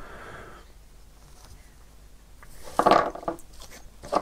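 Small cast-metal miniature parts being handled on a cutting mat: a brief clatter of light metal pieces knocking together about three seconds in, then a few small clicks near the end.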